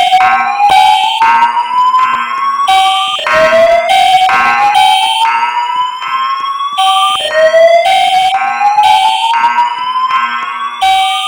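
A school fire alarm system's evacuation signal sounds between voice announcements. A whooping tone rises steadily in pitch over about four seconds and starts again low, three times, while a horn tone pulses rapidly and evenly alongside it.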